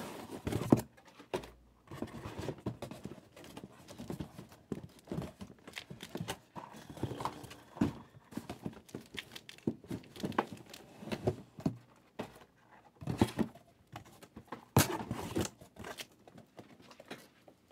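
Cardboard trading-card boxes being handled on a table: irregular knocks and taps, a few in quick clusters, with some crinkling.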